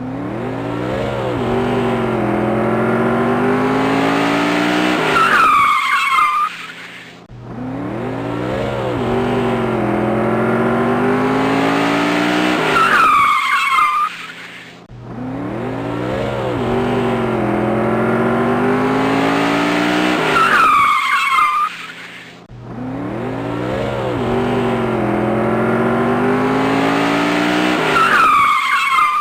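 Race car engine rising in pitch as it accelerates, ending each time in a high wavering tyre squeal. The short effect then cuts off abruptly and repeats, about every seven and a half seconds, four times in a row.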